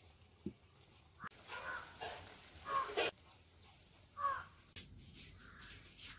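Crows cawing: a run of harsh calls in the first half, and one more a little after the middle.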